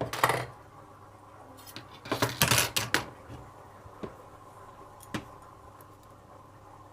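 Small metal lock parts clicking and rattling as a pin-tumbler lock is taken apart: a sharp click at the start, a short cluster of clattering about two seconds in, then two single ticks.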